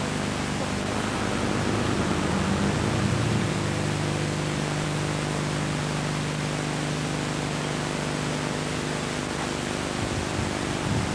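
Steady hiss and low hum of worn VHS camcorder audio, with the rumble of cars rolling slowly past underneath; the low sound gets louder and rougher near the end.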